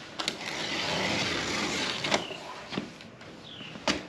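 A large, heavy cardboard box being shifted and scraped across a concrete patio, a rough scraping rasp for about two seconds, with a few sharp knocks as it is handled.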